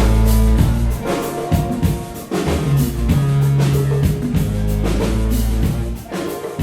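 Band music with a drum kit keeping a steady beat under held bass notes and guitar.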